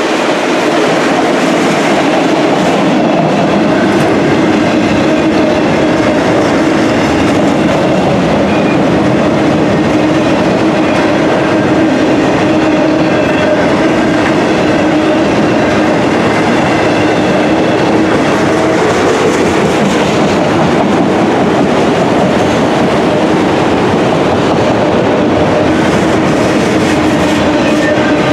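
Autorack freight cars rolling past, their steel wheels running loud and steady on the rails, with a steady low hum underneath.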